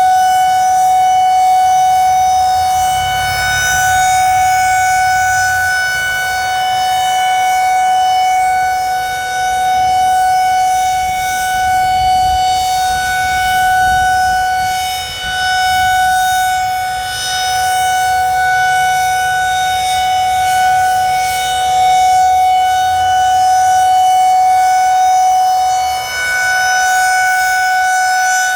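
Federal Signal 2001-SRNB rotating single-tone electromechanical warning siren sounding a steady signal at full speed: one loud, unwavering high tone with no rise or fall in pitch, its loudness swelling and dipping slightly as it runs.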